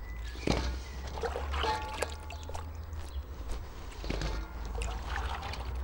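Water dripping and trickling back into a pot as handfuls of washed cauliflower florets are lifted out to drain. The wet florets are then dropped into a stainless steel wok with small scattered clicks and splashes.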